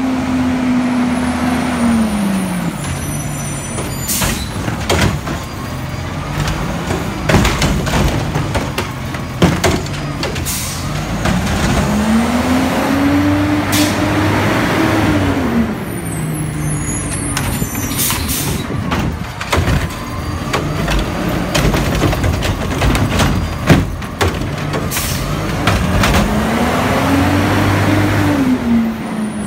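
Garbage truck's diesel engine revving up and falling back three times as it works the street, with hisses of air brakes and sharp knocks and bangs in between.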